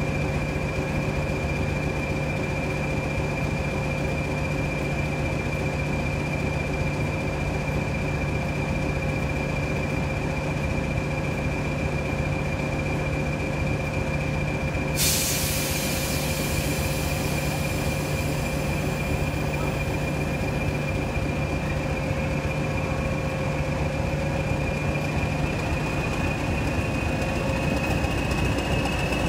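English Electric Class 20 diesel locomotive's eight-cylinder turbocharged engine idling steadily, with a deep drone under the whistle of its turbocharger. A hiss of air joins about halfway through. Near the end the whistle rises slightly in pitch as the engine picks up.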